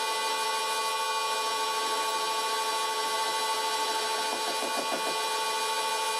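Old Karger metal lathe running under a cut, a steady whine made of several fixed tones over a hiss, as a tool bit turns down a hard metal workpiece.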